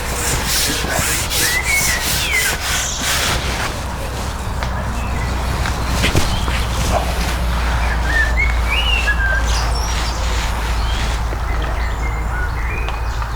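Small birds chirping in short, rising and falling calls, twice in a few seconds, over a steady low rumble, with rustling during the first few seconds.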